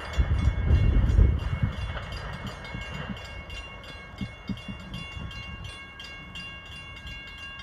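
Railroad grade-crossing bell ringing with rapid, evenly spaced strikes, while the low rumble of a train fades out over the first second or two.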